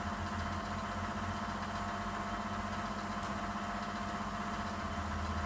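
Steady machine hum: a low drone with a couple of fixed tones above it, unchanging throughout.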